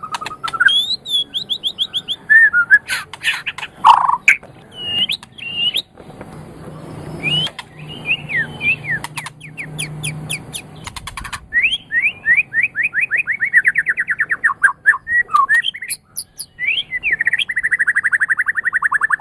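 White-rumped shama (murai batu) singing a varied song of rapid whistled trills and notes sliding up and down, phrase after phrase, with a few sharp clicks between phrases.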